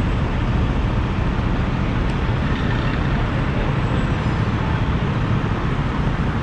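Downtown street traffic noise: a steady, even rumble of vehicle engines, heaviest in the low end.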